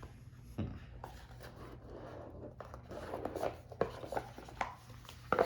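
A tarot deck and its paper booklet being handled: one knock about half a second in, then a quick run of light taps, rubs and paper scrapes in the second half.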